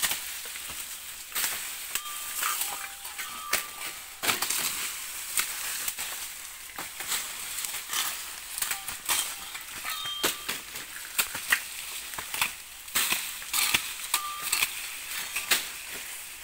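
Dry sugarcane leaves crackling and rustling as canes are cut and pulled down by hand, with frequent sharp snaps and chops of the stalks at irregular intervals.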